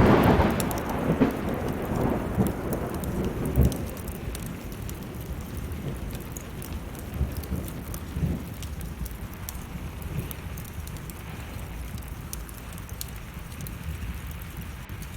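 A thunderclap breaks out suddenly and rolls away in a rumble over about four seconds, over steady rain and the small sharp crackles of burning wood.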